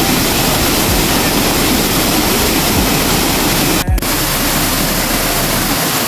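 Steady rush of a waterfall heard up close. It drops out for a split second about four seconds in, where two clips are joined.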